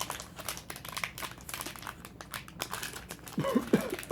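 Crinkling of foil booster-pack wrappers being handled and torn open, a rapid run of small crackles. About three and a half seconds in there is a brief pitched squeak.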